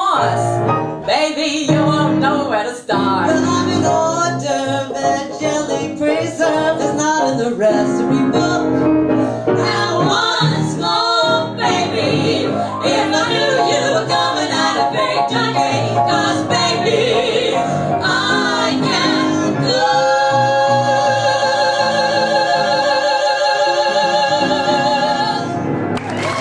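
A female vocal trio singing a cabaret number in harmony with piano accompaniment. About twenty seconds in, the three voices hold a final chord with wide vibrato for about six seconds.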